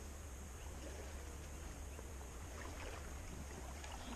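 Steady low wind rumble on the microphone over faint river water, with a few faint short ticks or splashes near the end.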